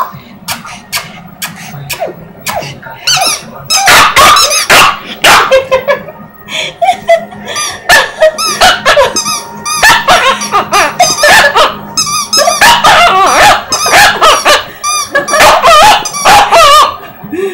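Rubber squeaky toy squeaking over and over as a puppy chews it. The squeaks are high and wavering, a few at first, then quick runs from about three seconds in.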